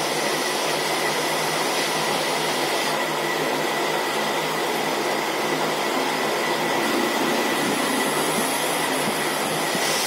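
Hot-air rework blower blowing steadily, with a faint steady high whine, as it heats the underside of a phone board's charging connector to reflow its solder.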